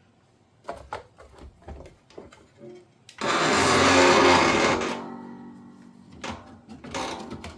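Clicks and knocks of plastic parts being handled, then a loud rattling scrape lasting about two seconds that leaves a ringing tone dying away, as the detergent and rinse aid dispenser is worked loose and popped out of the dishwasher's inner door panel.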